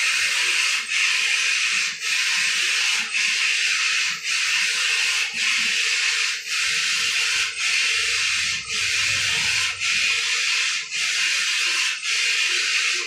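Saree rolling machine running: a steady hiss that cuts out for a moment about once a second, in an even rhythm.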